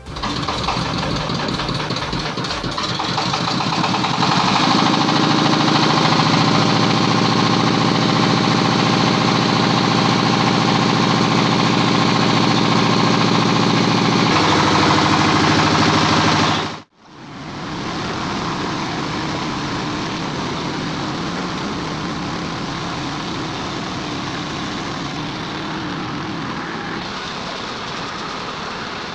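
A stationary single-cylinder diesel engine runs steadily, getting louder about four seconds in as it belt-drives a meat grinder. The sound cuts off sharply at a cut about 17 seconds in, then the engine and grinder run on together while meat is being ground.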